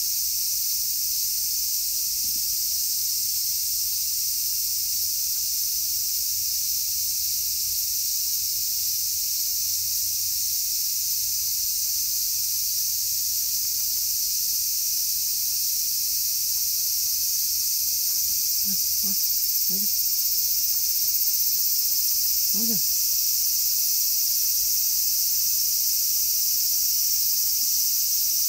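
A dense, steady chorus of insects buzzing and chirring at a high pitch, unchanging throughout.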